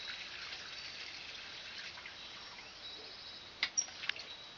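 Water running from a garden hose fed by a newly fitted hose bib, a faint steady hiss. Some high chirps are heard, and a few sharp clicks fall close together after about three and a half seconds.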